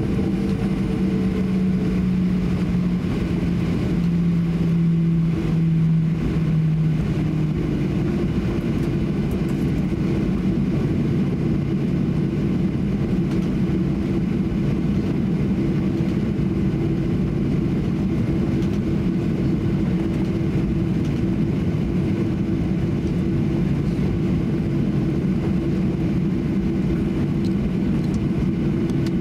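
Cabin noise inside a Boeing 737-800 taxiing on its CFM56-7B engines at low taxi power: a steady drone with a low humming tone. Around four to seven seconds in, one tone drops slightly in pitch and fades out.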